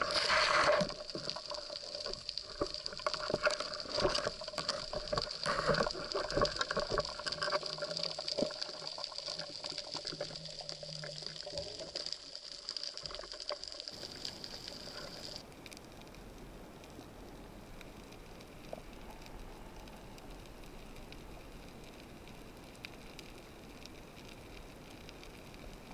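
Muffled underwater water noise picked up through an action camera's waterproof housing. In the first half there is sloshing and bubbling with many sharp clicks and knocks. About halfway there is an abrupt change to a faint, steady hiss.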